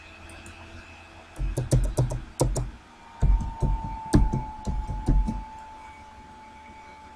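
Typing on a computer keyboard: a quick run of a dozen or so keystrokes beginning about a second and a half in and stopping about four seconds later.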